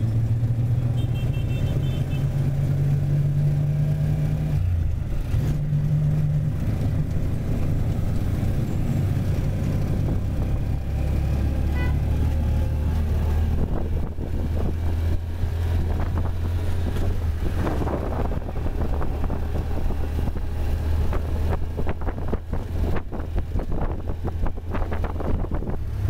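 Motorized rickshaw's engine running steadily while riding through city traffic, its hum dropping to a lower note about ten seconds in. A fluttering, rattly noise grows over the second half.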